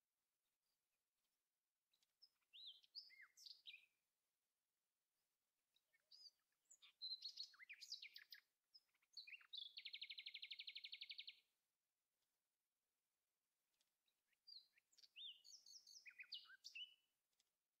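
Faint songbird singing: bouts of high chirps and whistled notes sliding in pitch, the middle bout ending in a rapid, even trill about two seconds long.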